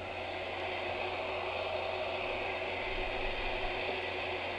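Industrial heat gun running steadily on its low setting: an even rush of blown air with a fan whir and a faint low hum.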